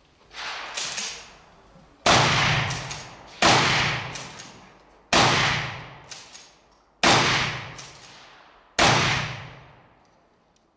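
Gunshots during a 3-gun stage: two fainter reports in the first second, then five loud shots spaced about one and a half to two seconds apart, each trailing off in a long echo with a few fainter sharp sounds in it.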